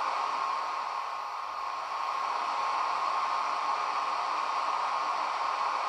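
Steady fan-like hiss with a thin constant whine, the standstill ventilation sound of a model electric locomotive's ESU sound decoder, heard through its small speaker.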